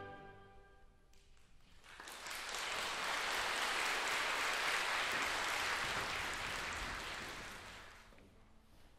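The last chord of a mandolin orchestra dies away, and after a moment of quiet an audience applauds steadily for about five seconds, then the applause fades out.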